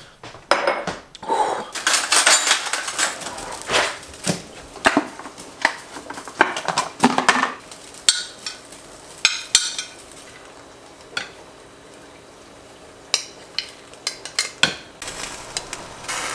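Dishes and metal cutlery clattering: plates, bowls and utensils knocked and scraped together while food is prepared, with a busy run of clinks in the first half and scattered ones later.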